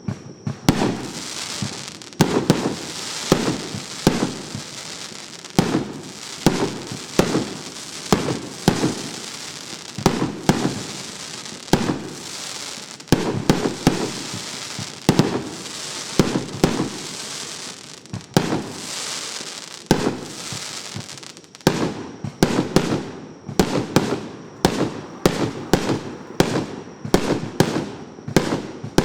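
An 88-shot, 1.5-inch consumer fireworks cake firing shot after shot, with sharp launch and burst reports and a hissing crackle between them. The shots come faster in the last several seconds, about two or three a second.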